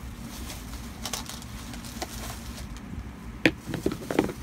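Hard plastic tubes of foil paper knocking and clattering against each other as they are gathered up by hand: a few light clicks, then a cluster of sharper knocks in the last second, the first of them the loudest.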